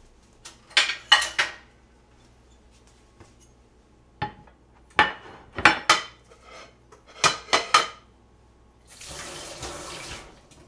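Plastic tray and kitchen knife clattering on a plastic cutting board and countertop in several short groups of sharp knocks, then a kitchen tap running for about a second near the end.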